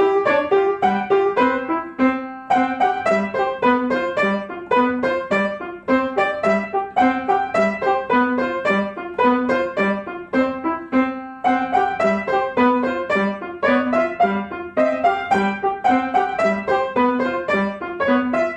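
Piano duet on two upright pianos: a steady pattern of repeated low notes under a quicker tune higher up, played at an even pace.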